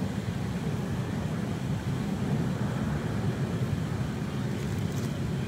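Steady low rumbling background noise, with a faint click near the end.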